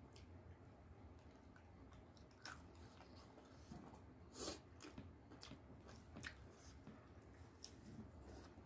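Faint chewing and mouth sounds of people eating by hand: soft smacks and clicks at irregular intervals, a louder one about four and a half seconds in, over a faint low hum.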